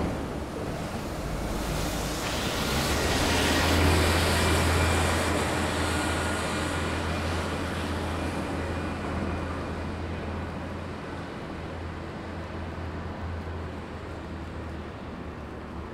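A road vehicle passes on a city street: its rushing noise swells over a few seconds and then fades away, over a steady low rumble.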